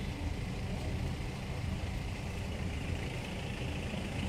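Road vehicles' engines running in a steady low rumble, as traffic waits at red lights.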